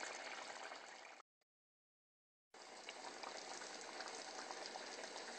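Pot of tomato meat sauce bubbling on the stove: a faint, steady simmer with small pops. About a second in, the sound cuts out to dead silence for just over a second, then the bubbling resumes.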